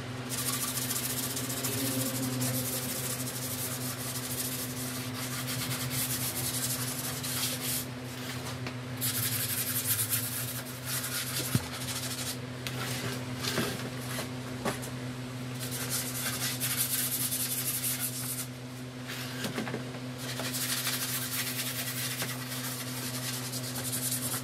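Hand sanding of a solid-wood frame with sandpaper: runs of quick back-and-forth rubbing strokes broken by short pauses. A steady low hum runs underneath.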